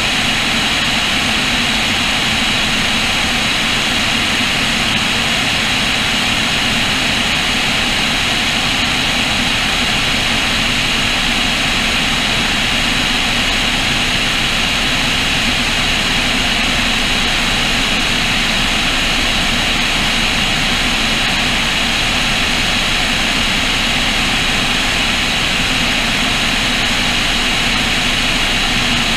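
Cessna O-2A's twin push-pull piston engines running steadily in level flight, with airflow rushing over the wing-mounted camera; an unchanging, even sound throughout.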